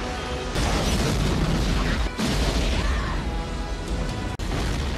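Film sound effects of a lava-fed street fire: a deep rumbling boom hits about half a second in and another just after two seconds, over the fire's steady rumble and background music.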